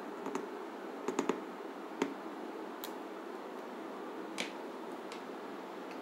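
Sparse light clicks and taps of hands working a carved carrot piece onto a toothpick in a carved chayote, over a faint steady hum; a quick run of three clicks comes about a second in.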